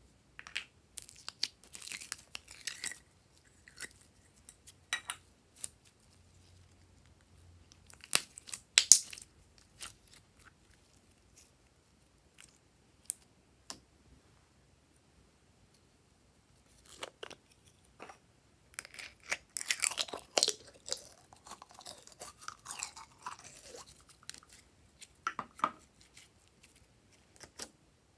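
Glossy slime being mixed and squished by hand, giving irregular wet clicks, pops and crackles. There are short quiet gaps, and a busier run of squishing about two-thirds of the way through.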